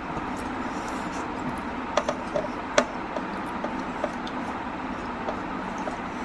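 Close-up eating sounds of a person chewing mutton curry and rice: scattered wet mouth clicks and smacks, a cluster of them about two to three seconds in, over a steady background hum.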